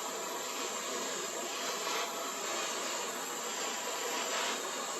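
Gas torch flame hissing steadily while it heats a copper bar until the copper is soft enough to bend.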